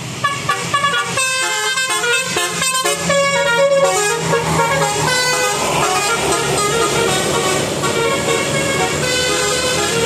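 Telolet musical horn on a tour bus playing a melody: a quick run of short notes in the first few seconds, then longer held notes, over the low hum of the bus engine.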